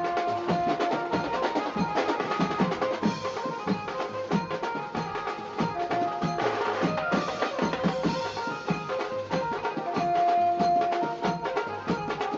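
Background music: drums keeping a steady beat under held melody notes.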